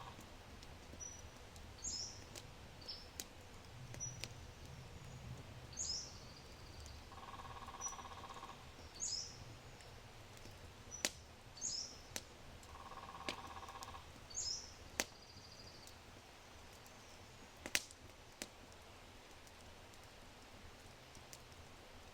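Oak wood fire crackling low in a brick fireplace, with a low steady rumble and scattered sharp pops, the loudest a little after halfway. A bird repeats a short high chirp every second or two, stopping about two-thirds of the way through.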